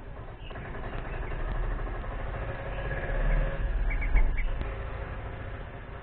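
A low rumble that swells to its loudest three to four seconds in, with a quick run of about four short high chirps from the bulbuls at the nest about four seconds in, as an adult arrives to feed the hungry chicks.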